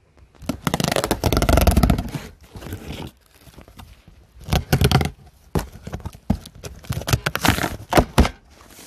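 A cardboard box being opened: its packing tape is slit and torn, and the cardboard flaps scrape and rustle. A long scraping tear comes in the first few seconds, then a run of sharper tears and knocks.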